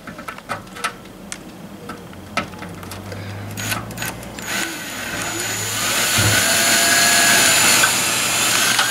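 Small clicks of a screw and washer being handled against the sheet metal. About halfway through, a Ryobi cordless drill starts driving a screw to mount an HID ballast, running steadily and growing louder as it goes.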